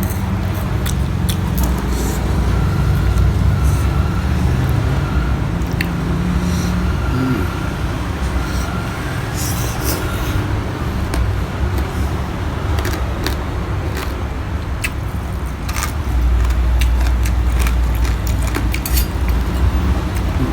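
Eating noises: chewing and scattered sharp clicks and scrapes, like utensils on a plate, over a steady low rumble that gets louder about three quarters of the way through.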